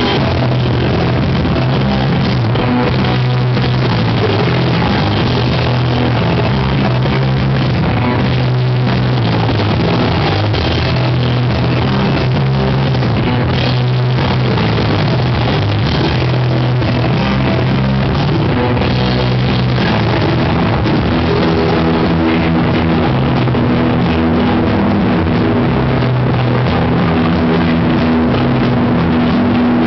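Live rock band playing loud and steady: electric guitar, bass, drum kit and keyboard together, with sustained bass notes changing every few seconds.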